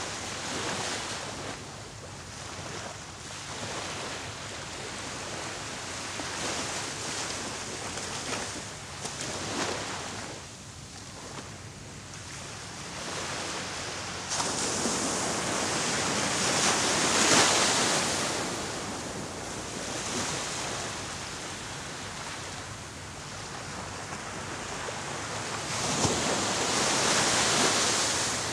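Small waves washing onto the shore, the surf swelling and fading. It is loudest about halfway through and again near the end.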